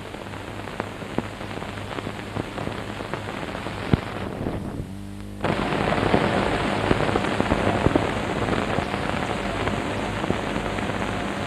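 Crackle and small pops of a worn optical film soundtrack, over a steady low mains hum, with no narration. About four seconds in, the hiss drops out for a second, then comes back louder.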